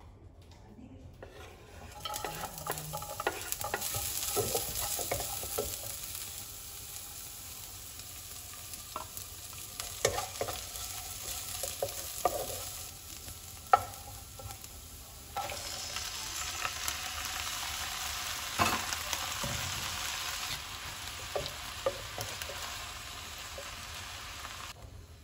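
Sliced shallots and chillies sizzling in hot oil in a non-stick wok, stirred with a wooden spatula that scrapes and knocks against the pan. From about halfway the sizzle gets louder as morning glory (water spinach) is stir-fried.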